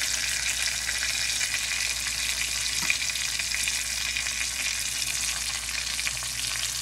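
Hash brown patties and a battered chicken breast frying in shallow olive oil in a stainless pan: a steady sizzle and crackle, with one light click about three seconds in.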